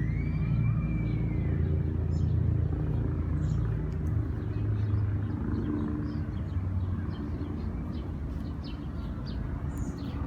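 Low engine rumble of a passing vehicle, strongest for the first few seconds and then fading away, with faint bird chirps and one high whistling note that rises and falls right at the start.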